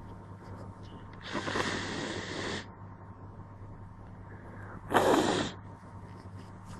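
Two forceful bursts of breath from a person with a head cold, sneezing or blowing the nose: a long one lasting over a second, then a shorter, louder one starting sharply about five seconds in.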